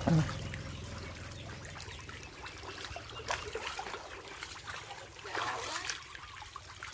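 Shallow muddy water trickling and lightly splashing as a seine net is dragged and lifted through a drained pond full of fish, with a short louder bump right at the start.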